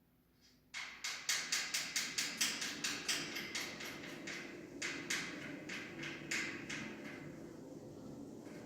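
Rapid ratchet clicking, about six sharp clicks a second, starting about a second in, fading, then coming again in a second run a few seconds later.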